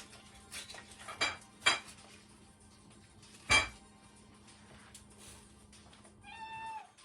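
Kitchen utensils and dishes clinking: three sharp, ringing metallic clinks with light clatter between them, then a brief high pitched tone near the end.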